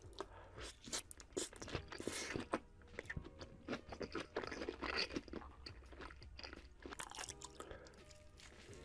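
Close-miked eating sounds: a bite taken off a skewer of sausages and quail eggs in red sauce, then chewed with irregular crunching and crackling. Another bite comes near the end.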